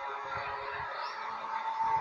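A steady drone of several held tones over a haze of noise, with irregular low rumbles underneath, starting abruptly.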